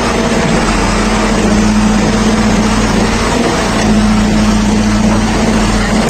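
JCB 3DX backhoe loader's diesel engine running steadily at working revs, heard close up, with an even low drone.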